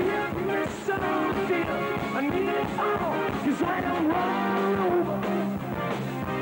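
Live rock band playing at full volume, with drums, electric guitar and keyboards and a melody line that bends up and down in pitch.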